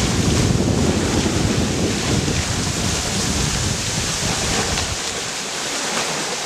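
Wind buffeting the microphone over the steady wash of waves on the lakeshore. The low rumble of the wind drops away about five seconds in.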